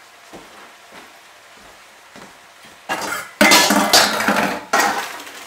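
A metal pot clattering as boiled pasta is tipped out of it into a metal colander: a few faint knocks, then about three seconds in a loud stretch of clatter and rushing, with one more burst near the end.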